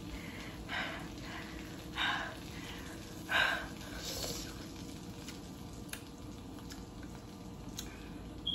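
A person eating with her fingers makes four short breathy mouth sounds about a second apart, then a few faint clicks near the end. A faint steady hum runs underneath.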